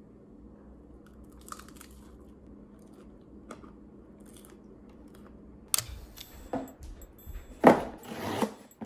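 Faint chewing of crusty toast, then a blade slicing through packing tape on a cardboard shipping box: a sharp click followed by a few loud scraping, tearing strokes.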